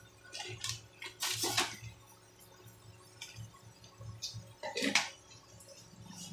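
Water splashing as it is poured from a small plastic cup, in a few short bursts; the loudest comes about a second and a half in.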